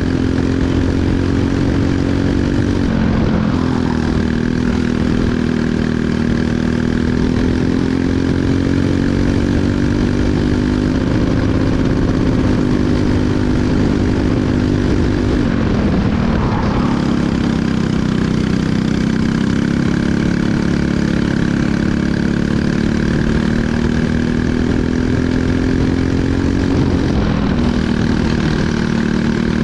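Briggs & Stratton LO206 single-cylinder four-stroke kart engine running at race pace, its pitch climbing slowly as it pulls down the straights and dropping sharply three times, about three seconds in, midway and near the end, as the driver lifts and brakes for corners.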